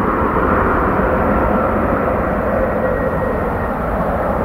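Airbus A319-132's two IAE V2500 turbofan engines at takeoff power as the airliner rotates and lifts off: a loud, steady engine noise with faint steady whining tones over it.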